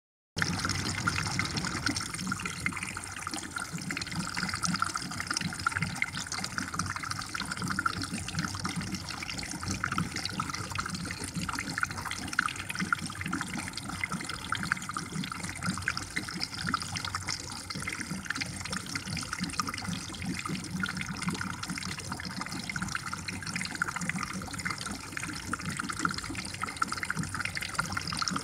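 Steady trickling and bubbling water of a goldfish tank's circulation, a constant splashy hiss with fine crackle.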